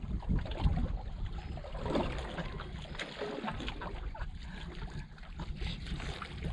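Water lapping and trickling against the hull of an East Cape Vantage flats skiff, with irregular small splashes and wind buffeting the microphone as a low rumble.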